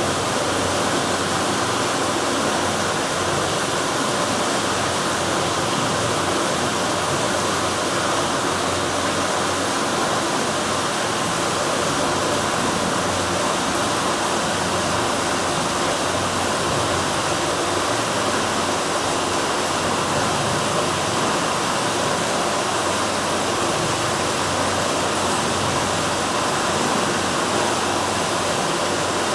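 Steady, loud rushing noise of sea surf, kept as unbroken white noise with no rise and fall of separate waves.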